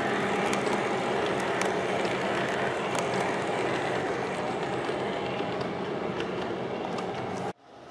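Model train cars on an O-gauge three-rail layout rolling past, a steady rumble of wheels on track with scattered sharp clicks. It slowly fades as the last car goes by, then cuts off suddenly near the end.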